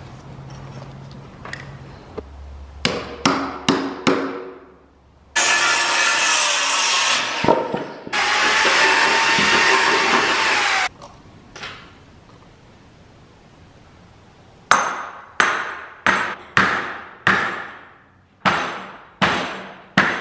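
A few hammer blows, then a power drill boring into a timber beam in two long runs, the second one winding down at its end. After a pause comes a steady run of about nine ringing hammer blows, roughly two-thirds of a second apart.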